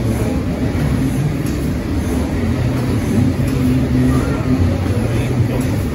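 Large vintage stationary engine running steadily.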